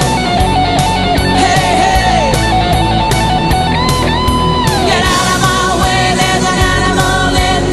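Rock song with electric guitar and a steady beat, its lead melody bending up and down between notes.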